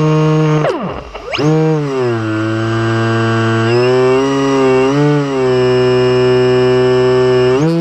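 Electric motor and propeller of an RC model plane whining at a steady pitch; about a second in the pitch plunges and climbs back, then it runs lower with wavering dips and rises again near the end. The faltering is a loose propeller slipping on the motor shaft, which at first sounded like a burned-out motor.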